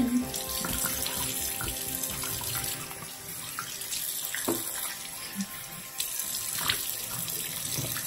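Bathroom tap running into the sink while handfuls of water are splashed onto the face to rinse off foaming face wash, with a couple of sharper splashes about halfway through and near the end.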